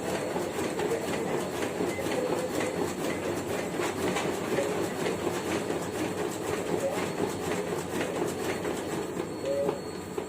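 Photocopier running at speed, feeding and printing copies with a steady, rhythmic clatter of about three clicks a second.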